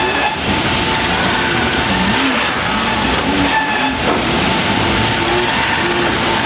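Loud, steady machinery noise with a wavering low hum running through it, from saw-shop or shingle-mill equipment running.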